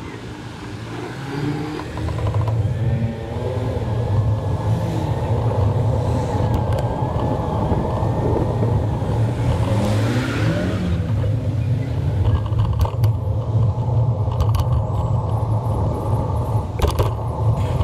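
Road traffic: motor vehicles running close by, with a steady low rumble that sets in about two seconds in.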